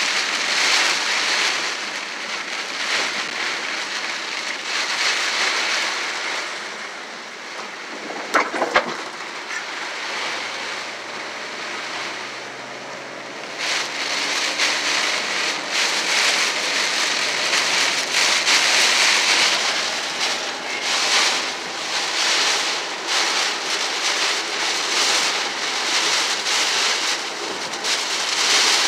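Rain hitting a moving vehicle's windshield and body, with wet-road tyre noise, heard from inside the cabin. It eases off around the middle and comes on heavier again about halfway through, with a brief knock a little before the lull ends.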